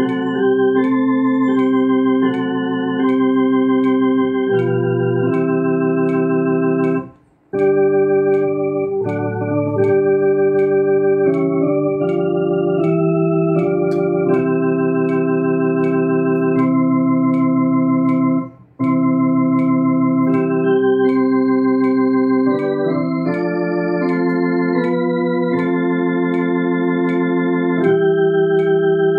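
Two-manual electronic organ playing a hymn slowly with both hands, in held chords that change step by step. The sound breaks off briefly twice, about seven and a half seconds in and again near nineteen seconds, between phrases.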